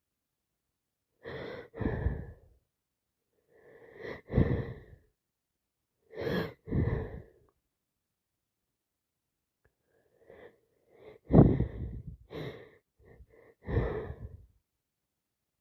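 A woman sneezing again and again from a heavy head cold, each sneeze led in by a sharp in-breath; the loudest sneeze comes about two-thirds of the way through.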